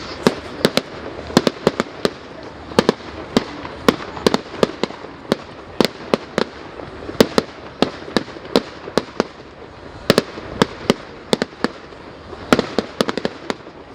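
Fireworks display: a rapid, irregular run of sharp bangs and cracks from bursting shells, sometimes several a second, over a steady background hiss.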